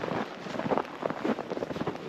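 Footsteps crunching in fresh snow, about two steps a second.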